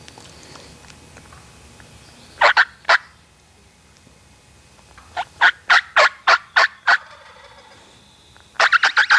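Turkey yelping in short series of sharp, raspy notes. A couple of notes come about two and a half seconds in, then a run of about seven at roughly four a second, then a quicker run begins near the end.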